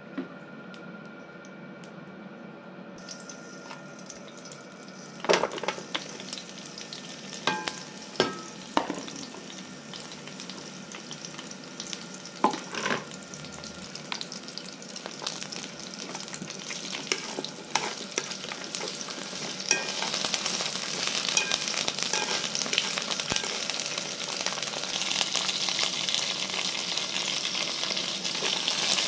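Dried snake meat frying in hot oil in a pan: a sizzle that starts a few seconds in and grows louder toward the end, with several sharp knocks and clatters of the utensil and pan in the first half as the meat is put in and stirred.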